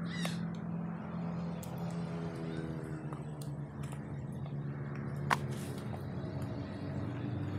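Cardboard packaging boxes and rubbish being handled: scattered light clicks and taps, with one sharp click about five seconds in, over a steady low hum.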